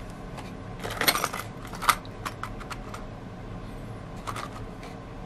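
Carded plastic blister packs of fishing lures handled and set down on a tabletop: a few light clicks and rustles, the loudest about a second in and just before two seconds.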